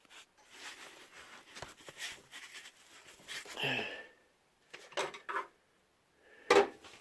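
Objects being handled and shifted on a work surface: rustling and light clicks, then a few sharper clicks and one loud knock near the end.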